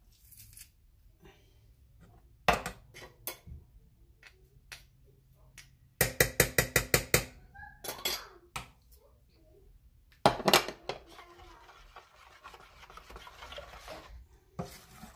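Metal garlic press clicking and knocking against a metal pot as garlic is squeezed into the batter, with a rapid run of about nine sharp knocks about six seconds in and more loud clacks about ten seconds in. Near the end comes a softer, steady scraping of a utensil stirring the thick batter.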